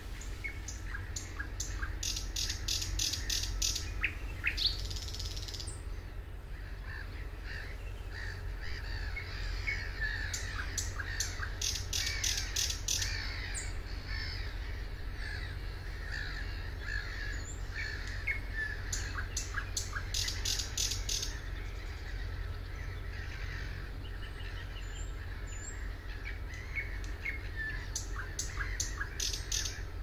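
Thrush nightingale singing. Its song repeats phrases of fast, dry clicking strokes, about six a second, that come roughly every nine seconds. Between them it gives short whistled and chirping notes. A steady low rumble runs underneath.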